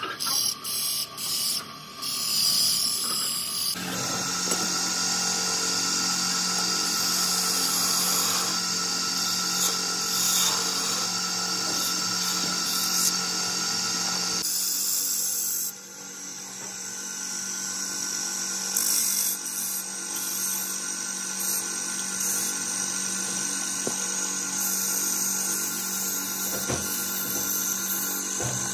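A belt-driven wood lathe runs with a steady hum while a hand chisel cuts and scrapes a spinning wooden disc, giving a high hissing scrape over the motor tone. The sound changes abruptly twice, about 4 s in and about 14 s in.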